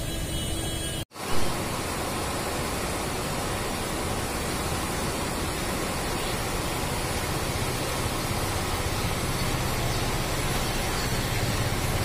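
Fast floodwater rushing around bridge piers, a steady, even rush of noise. About a second in, the sound cuts out for an instant and comes back with a brief loud thump.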